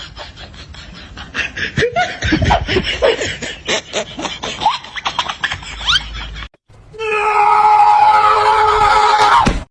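A person laughing in short bursts. After a break, a loud held pitched sound with several overtones runs for about two and a half seconds and stops suddenly.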